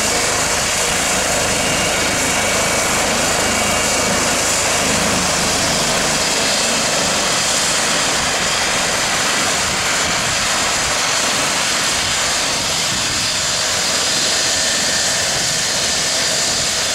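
Eurocopter EC135 rescue helicopter on the ground with its turbines running and main rotor turning: a steady high turbine whine and hiss. The low rotor beat drops away about six seconds in.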